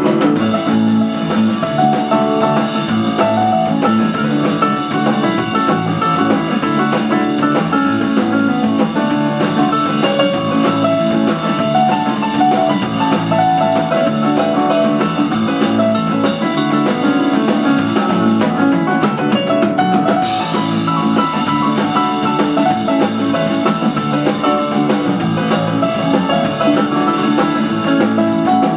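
Live rock band playing an instrumental: electric guitar, electric bass, piano and Hammond B-3 organ over a drum kit. The high end grows brighter about two-thirds of the way in.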